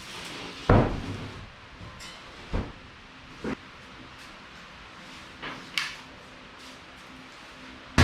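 Several separate knocks and clunks, like things being handled and set down. The loudest comes about a second in, with lighter ones spread through the rest and a sharp one at the end.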